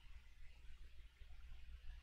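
Near silence: room tone with a steady low hum and faint hiss.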